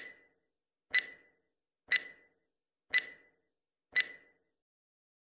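Countdown timer sound effect: five short, sharp ticks, one each second, each with a brief ringing tail.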